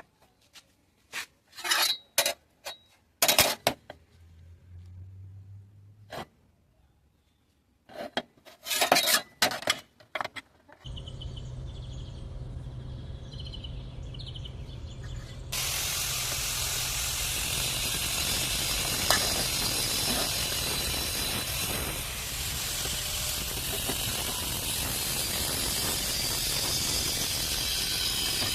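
A few short scraping strokes, then a steady hum starts about a third of the way in, and just past halfway a loud, steady hiss joins it: a metal-cutting torch cutting through steel pipe.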